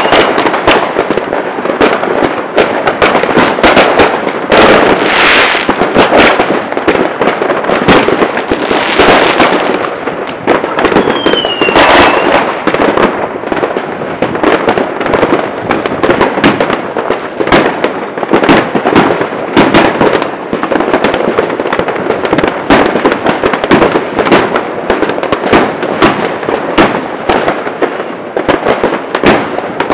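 Many New Year's fireworks and firecrackers going off at once: a dense, unbroken volley of overlapping bangs and cracks. Sustained crackling hisses come around five and nine seconds in, and a short whistle falls in pitch about twelve seconds in.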